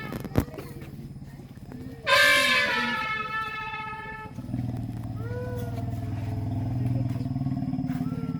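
An elephant trumpets once about two seconds in, a loud high blast that fades over about two seconds, followed by a long low rumble that swells for about four seconds and cuts off near the end.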